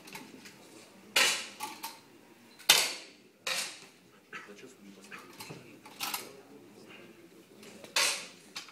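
Sharp cracks and metallic clacks from a 10 m running-target air rifle being fired and handled: about five separate hits a second or two apart, the loudest about three seconds in.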